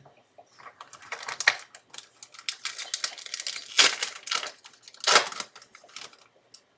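Trading cards being handled and flipped through in the hands: a run of crisp clicks and card-on-card rustling, with two louder snaps about four and five seconds in.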